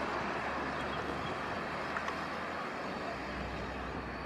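Steady, distant drone of a light single-engine propeller plane in flight, with no sharp changes.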